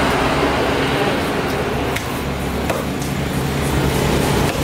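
Steady outdoor background din with a low hum, like passing traffic. A few light knocks of a knife on a wooden chopping block come through as a fillet is cut.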